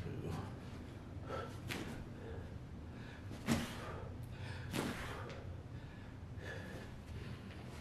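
A man breathing hard through a set of push-ups, with a few short, forceful exhales, the loudest about three and a half seconds in.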